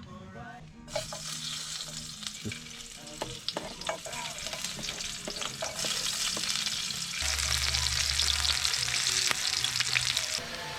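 Food sizzling in hot oil in a cooking pot while it is stirred, with the spoon clicking against the pot now and then. The sizzle starts about a second in and grows louder from about six seconds in.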